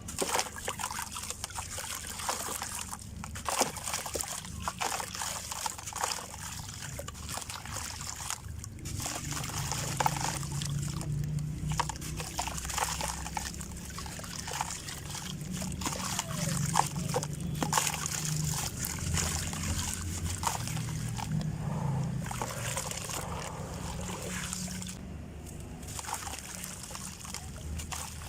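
Dusty black sand-cement shapes crumbling and being crushed: dense gritty crackling and crunching with grains trickling, punctuated by sharper cracks.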